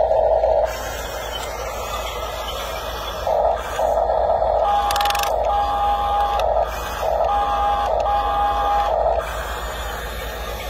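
Small electric drive motors of a Huina RC crawler bulldozer whining in short stop-start bursts, several times in a row, as it is driven on its tracks.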